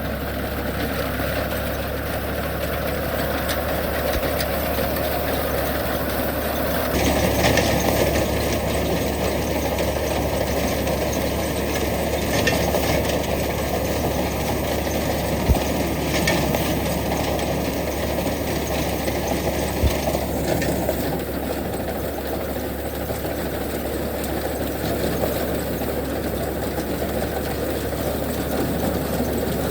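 Tractor engine running steadily, with mechanical clatter from the machinery it drives. The sound shifts abruptly about a quarter of the way in and again about two-thirds of the way through.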